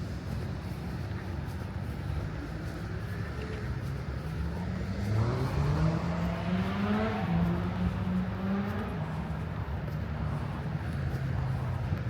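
Steady road-traffic rumble; about five seconds in, a passing motor vehicle accelerates, its engine pitch rising, dropping at a gear change and rising again before fading away.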